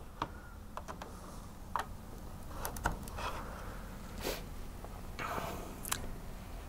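Faint scattered clicks and short rustles of an HDMI cable being pushed into a laptop and the cable and laptop being handled, over a steady low room hum.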